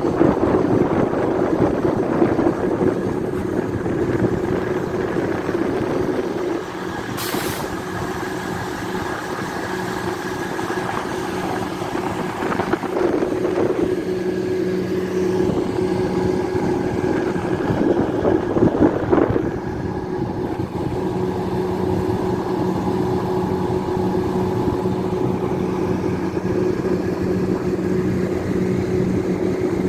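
An engine running steadily with a constant drone, with a brief sharp click about seven seconds in.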